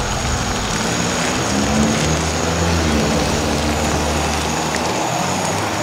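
A steady engine drone with a low hum that slowly shifts in pitch.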